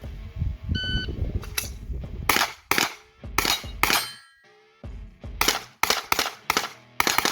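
A shot-timer beep, then a pistol-caliber carbine firing about a dozen rapid shots, many in quick pairs, as the shooter engages targets on an IPSC stage.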